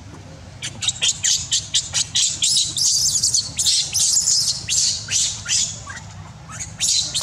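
Newborn baby monkey screaming in a rapid series of shrill squeals that fall in pitch, about three or four a second, with a brief pause near the end.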